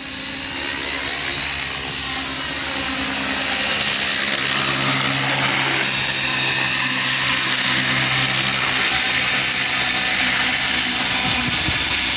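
Align T-Rex 600 RC helicopter flying in close: the high motor whine and rotor noise grow louder over the first few seconds as it comes down toward the landing, then hold steady.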